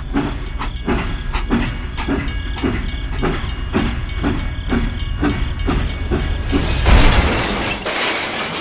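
A small engine running with a steady, rhythmic knock, a little under three beats a second, over a low rumble. About six seconds in, a loud hiss rises over it and fades near the end.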